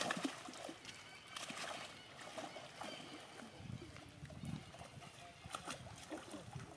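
Faint water splashing and lapping as a young macaque swims in a pool, with scattered small knocks.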